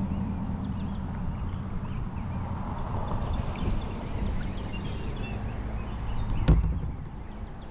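Steady low rumble of river water around a kayak, with birds chirping and calling high overhead. A single sharp knock sounds about six and a half seconds in.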